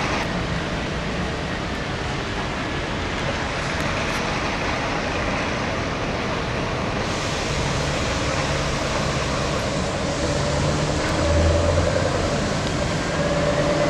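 Scania V8 diesel truck running on the road: a steady engine note under road and tyre noise, which grows louder about two-thirds of the way in and again near the end.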